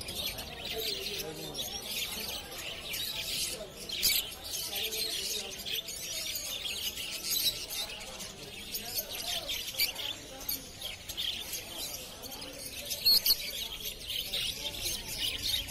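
Many caged pet birds chirping and twittering at once in a dense, unbroken chorus, with a few sharper calls standing out. People's voices murmur underneath.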